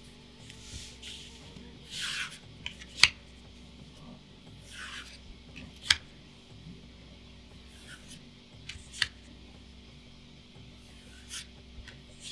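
Magic: The Gathering trading cards sliding one over another as they are revealed, each soft swish followed by a sharp card snap, about every three seconds.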